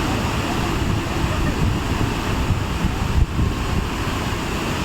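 Steady roar of Jang waterfall's falling water and spray, with wind buffeting the microphone and one brief thump a little past three seconds in.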